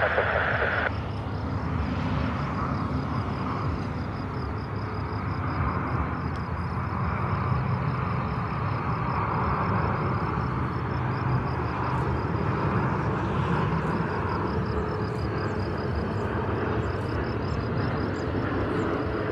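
Airbus A350-900 jet engines during landing, a steady rushing sound with a low rumble that swells and eases slowly.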